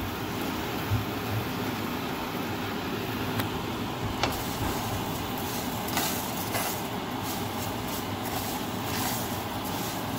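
Rice, onion, garlic and sliced carrots frying in a nonstick pan with a steady sizzle, the rice being toasted until brown. From about three and a half seconds in, a plastic spatula stirs them, making irregular scrapes and taps against the pan.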